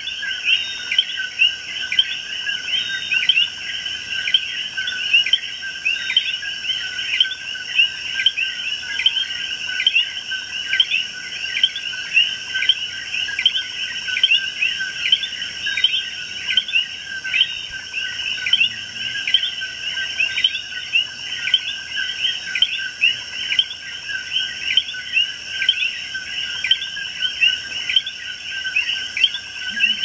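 Night chorus of Puerto Rican coquí frogs, many overlapping, each repeating its two-note 'co-quí' with a rising second note, several calls a second. Steady high insect trilling runs underneath, with a high hiss coming in about two seconds in.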